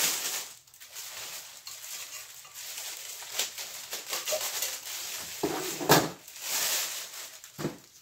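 Plastic wrap crinkling and rustling as it is cut open with scissors and pulled off a cookware pan, with a single sharp knock about six seconds in.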